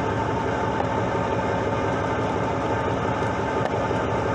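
Fishing boat's engine running steadily: a constant hum under an even rushing hiss of wind and water.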